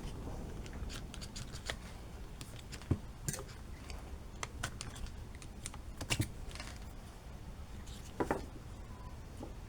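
Scattered light clicks and taps of small plastic parts and tools being handled while a pressure washer's power switch is taken apart, with a slightly louder cluster about six seconds in and a double click near the end.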